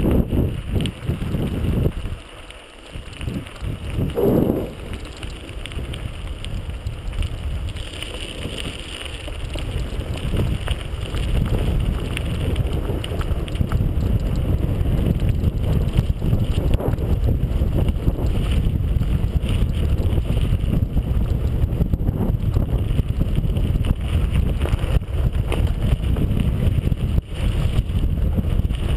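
Wind rushing over a GoPro camera's microphone together with the rumble and rattle of a mountain bike rolling fast over a rough track. The wind noise builds about ten seconds in and then holds steady.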